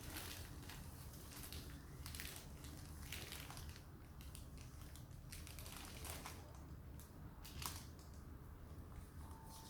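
Packaging crinkling and rustling in irregular short crackles as it is handled, over a low steady hum.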